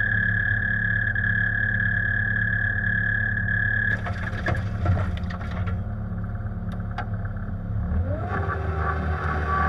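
Diesel engine of a Bobcat compact machine running with a steady high whine, which drops away about four seconds in. Clanks and knocks of the machine working shale follow, then the engine revs up near the end and holds the higher speed.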